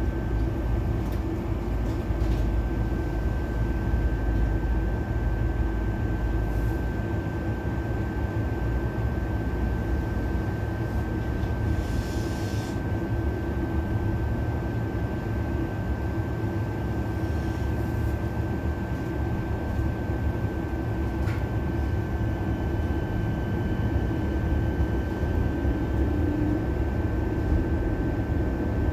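Tram running on its rails, heard from inside the cabin: a steady low rumble with a constant high tone throughout. A brief hiss comes about twelve seconds in.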